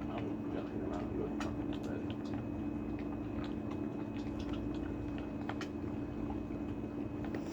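A dog eating from its bowl: scattered small clicks and crunches of chewing, over a steady low hum.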